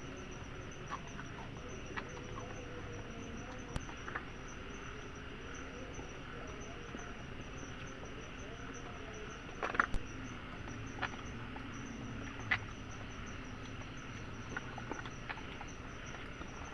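Forest insects chirring steadily in a high, pulsing drone, over a low background hiss. Scattered light clicks and taps come through, the loudest cluster about ten seconds in.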